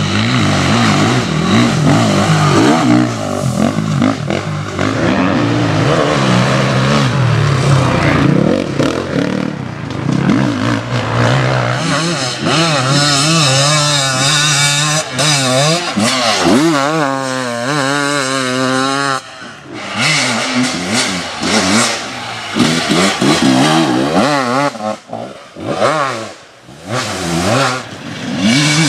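Enduro dirt bikes racing on a dirt forest track, engines revving hard with the pitch climbing and falling through throttle changes and shifts. In the middle one engine's revs warble rapidly up and down, and near the end the sound drops away briefly a few times between passes.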